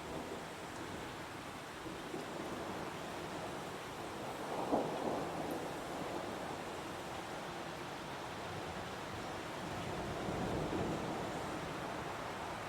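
Heavy rain falling steadily in a forest, a continuous hiss, with a brief louder surge about five seconds in and another swell near ten seconds.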